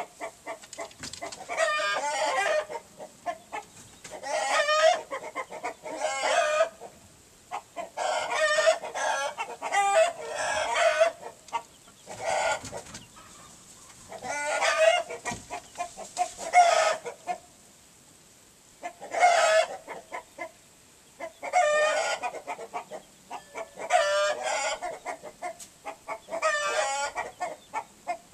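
Chickens calling loudly and repeatedly, one short harsh call after another every second or two, with a couple of brief pauses.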